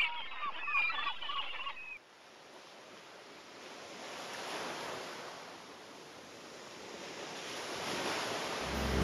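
Birds chirping for about the first two seconds, cut off abruptly, then a steady wash of ocean surf that swells and ebbs. Music comes in just before the end.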